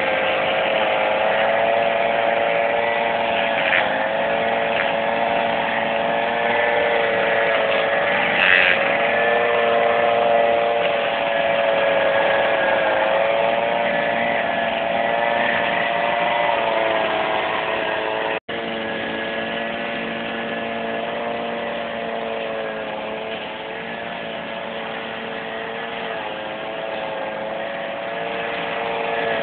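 Brush cutter's small engine running steadily as it cuts grass and undergrowth, its pitch wavering slightly with the load. The sound drops out for an instant about two-thirds of the way in.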